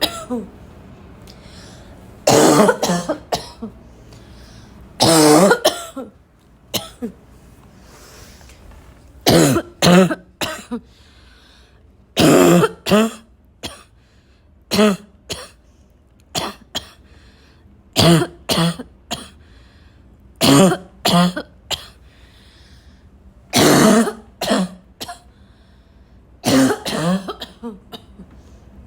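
A person's intense barking cough, coming in about ten fits of one to several loud coughs each, with throat clearing between, a fit every two to three seconds.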